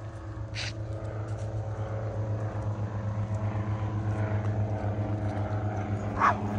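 Aircraft flying over: a steady low drone with a pulsing beat that grows gradually louder.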